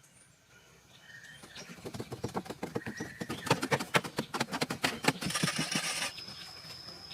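A quick, irregular run of knocks and clicks that grows louder after the first second and a half, with a stretch of scraping noise about five seconds in. A few short high chirps come early on, and a thin steady high whine near the end.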